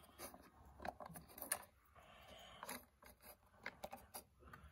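Faint, scattered clicks and light rattling of plastic Lego bricks being pressed onto a build and handled.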